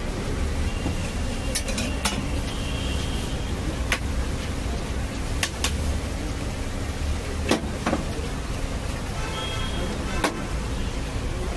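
Street food stall ambience: a steady low rumble with scattered sharp clicks and taps of steel utensils at the dosa griddles, about eight in all.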